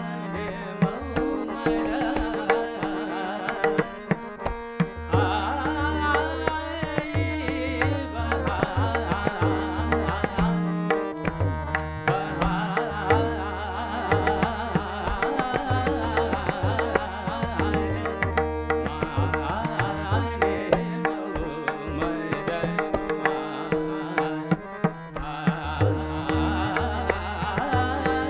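Hindustani classical vocal music: a male singer with tabla keeping a steady rhythm, harmonium and tanpura, the tabla's deep bass strokes recurring throughout.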